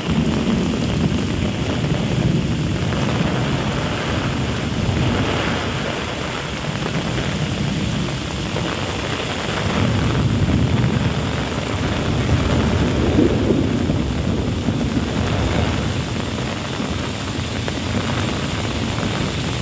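Heavy rain pouring down in a windy storm, a dense steady hiss. Low rumbling gusts of wind buffet the microphone and swell and ease every few seconds.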